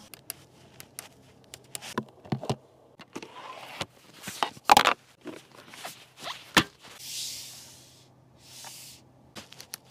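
Clicks and taps from a Cadillac CT6's interior controls as they are pressed and handled: the door's window switches and the centre-console knob. A sharp knock comes about halfway through, and two soft brushing rustles come near the end.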